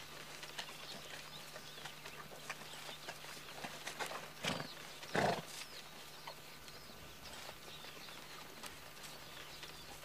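Przewalski's horses drinking at a waterhole: soft small sounds of drinking and shifting hooves, with two louder short sounds about four and a half and five seconds in.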